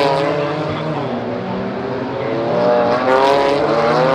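GT4 race car engines running on track, several notes overlapping; one rises in pitch a little past halfway as a car accelerates.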